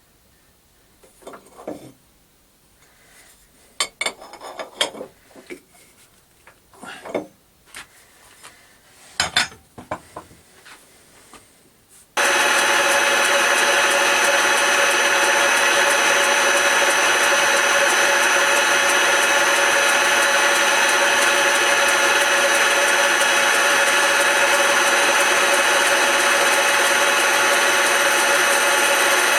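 A few scattered knocks and clicks, then about twelve seconds in a Smart and Brown model L metal lathe starts abruptly and runs steadily while a tool cuts into a wooden file handle spinning in it.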